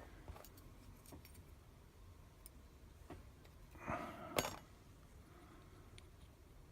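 Faint small metal clicks, with a brief rattle about four seconds in: springs and pins being picked out of a pin-tumbler lock's chambers with a small pick.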